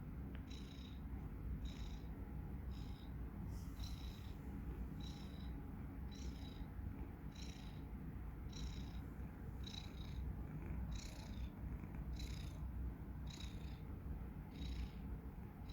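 Domestic cat snoring while asleep: a short, high, wheezy whistle with each breath, about one every second or so, over a low continuous rumble.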